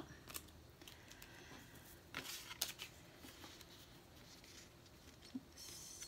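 Faint handling of card stock and paper on a tabletop: a few soft clicks and taps, then a light rustle near the end.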